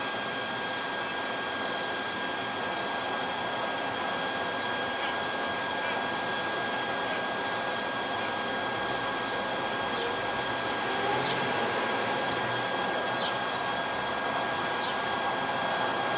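Steady outdoor city background noise over a large open construction site, with a constant high whine and faint short chirps scattered through; it grows a little louder about eleven seconds in.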